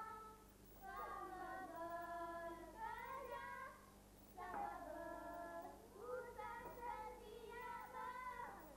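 A group of boys singing together, unaccompanied, in long held notes, pausing briefly about half a second in and again around four seconds in.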